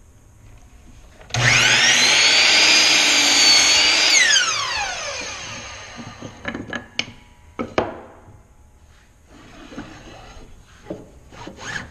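Bosch miter saw switched on and making a crosscut in a wooden board: a loud whine rises as the blade spins up, holds for about three seconds, then falls away as the blade coasts down. A few sharp knocks and wood sliding on the saw table follow.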